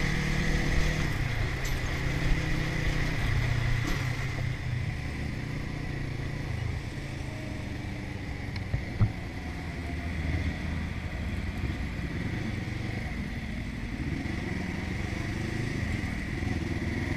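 Motorcycle engine running under the rider with road and wind noise, a steady high whine running through it. The engine note drops and gets quieter about four seconds in as the bike eases off in traffic, with a couple of small knocks around the middle.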